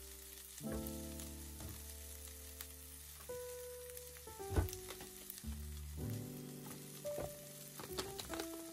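Black beans sizzling as they fry in a pan, with a few sharp clicks and knocks, the loudest about halfway through. Background music of held notes plays over it.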